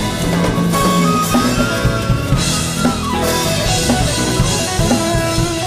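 Live band playing: drum kit and keyboard under a lead melody of long held notes, some bending in pitch.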